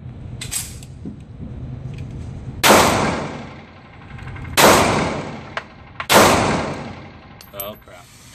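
Grendel P-10 pistol firing .380 ACP: three loud shots about two seconds apart, each echoing off the walls of an indoor range, with a fainter sharp crack about half a second in and a few small clicks near the end.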